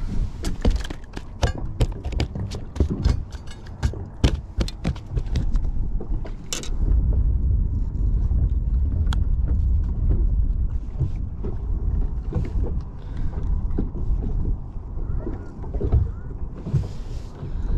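A quick run of clicks and knocks from handling a fish and tackle on a fishing boat's deck, then from about six seconds in a steady low rumble that is louder than the clicks.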